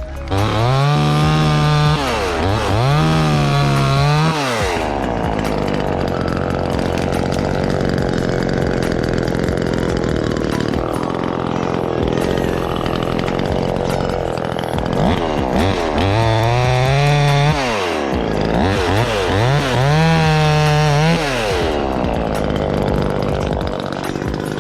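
Small two-stroke chainsaw with a 12-inch bar, cutting limbs. It revs up to a high scream twice near the start, runs lower and rougher while sawing through wood for about ten seconds, then revs high twice more before easing off near the end.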